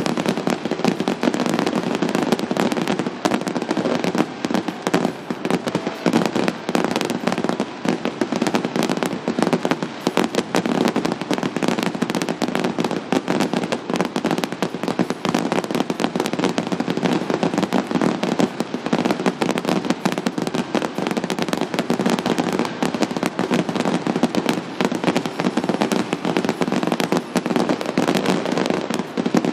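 Fireworks display going off without pause: a dense, unbroken rapid crackling and popping of many shells and crackle effects bursting at once.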